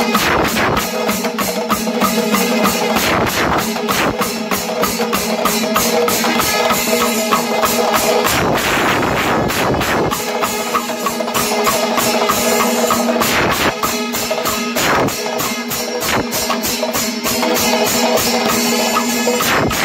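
Panchavadyam, the Kerala temple ensemble, playing: a dense, fast stream of drum strokes and clashing ilathalam cymbals, with long held notes over it that drop out for about two seconds near the middle.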